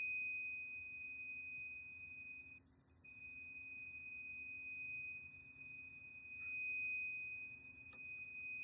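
System Sensor fire alarm horn sounding its continuous 2400 Hz tone: one steady, ear-piercing high pitch with a brief break about two and a half seconds in.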